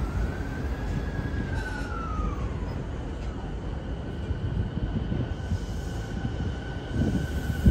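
JR East E217 series electric commuter train pulling away from the platform and gathering speed. A high whine rises and then falls in pitch over the first few seconds and then holds steady, over the rumble of the running gear, with a sharp knock at the very end.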